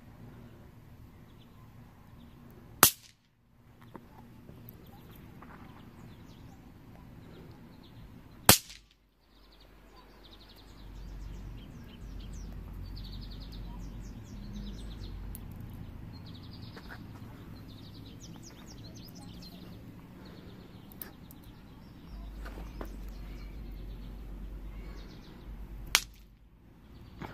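Three sharp cracks of bang snaps (paper-twist snap pops) thrown down onto concrete: one about three seconds in, another some six seconds later, and the last near the end.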